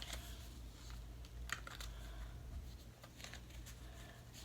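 Faint handling of a trading card and a plastic card sleeve: soft rustling with a few light clicks as the card is slid into the sleeve.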